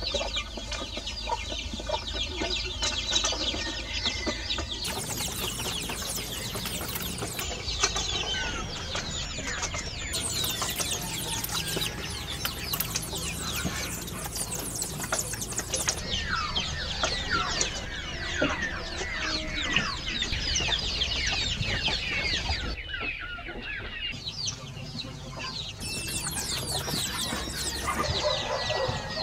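Farmyard chickens clucking amid many short bird chirps. A steady hum of several even tones sits underneath for the first five seconds and returns briefly near the end.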